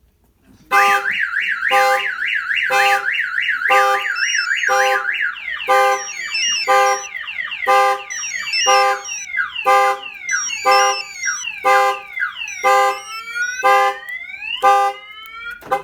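Auto Shield aftermarket car alarm siren going off, set off by a door being opened. It starts about a second in with a fast warbling tone, changes to repeated falling chirps and then to rising sweeps, with a loud pulse about once a second throughout.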